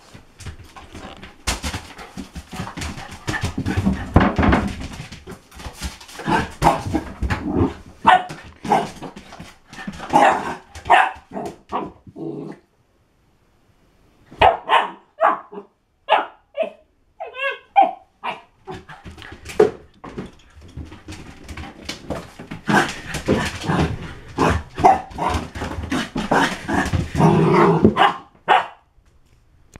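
A puppy barking in runs of short, sharp barks, with a high wavering yip or whine about halfway through.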